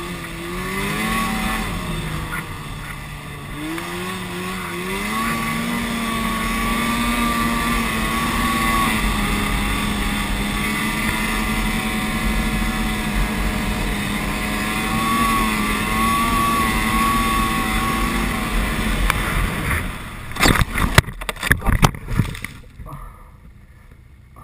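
Snowmobile engine running under throttle, its pitch rising and falling in the first few seconds and then holding steady as the sled travels the trail. About twenty seconds in, a rapid series of loud knocks and bangs as the snowmobile crashes, after which the engine is no longer heard.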